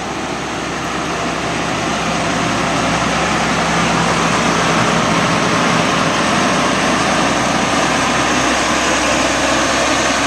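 New Holland CR960 combine's engine running steadily, growing louder over the first few seconds and then holding level.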